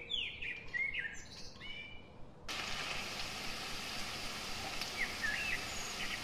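Birds chirping, a run of short rising whistled calls, then from about two and a half seconds in chopped onions frying in hot oil in a pan with a steady sizzle; another short chirp comes over the sizzle about five seconds in.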